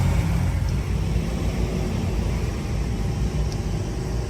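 Heavy truck engine running with a steady low rumble as the truck works up a steep climb.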